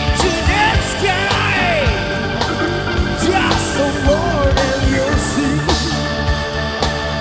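Rock band playing loud: drums with cymbal hits, and sustained distorted guitar and keyboard chords. A lead line bends up and down in pitch over them.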